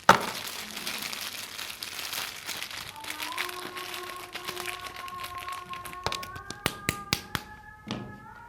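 Soap bar wrapper crinkling as it is torn and unfolded, opening with one sharp snap and later a few crisp clicks and taps.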